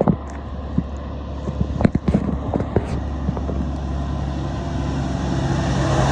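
A truck's engine running as it comes along the road, its rumble and tyre noise growing louder over the last couple of seconds, with no horn sounded. A few light knocks come in the first three seconds.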